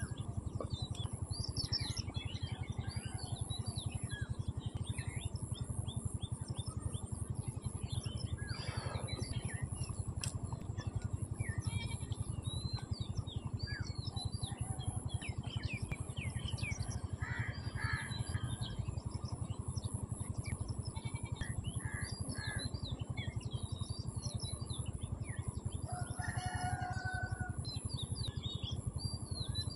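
Many small birds chirping and twittering in quick, overlapping calls over a steady low background noise.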